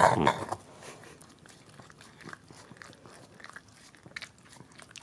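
Cavalier King Charles Spaniel licking and gnawing at frozen food in a silicone slow-feeder toy: a run of small wet licks, smacks and crunchy bites, irregular and quiet, after a brief louder sound at the very start.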